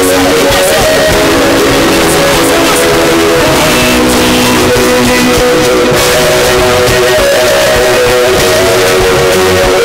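Loud church praise music, with a guitar prominent and held notes changing every second or two.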